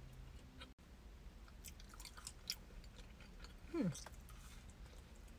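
Faint chewing and biting into a soft cookie, with small wet mouth clicks. About four seconds in, a brief tone sliding down in pitch is the loudest sound.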